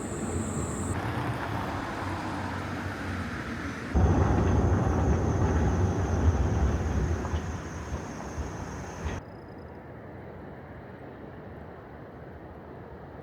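Outdoor street ambience in several cut segments. From about four seconds in, a louder low rumble of a passing vehicle fades away, then cuts off sharply about nine seconds in to quieter background noise.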